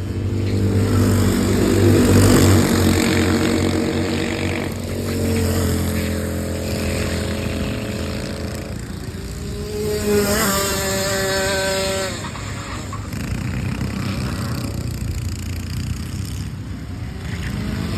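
Small single-cylinder go-kart engines running at speed as several karts pass one after another. Each engine rises and fades as it goes by, and the pitch differs from kart to kart; a higher-pitched one passes about ten seconds in.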